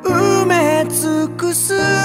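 A song: a sung melody with vibrato over held accompanying chords.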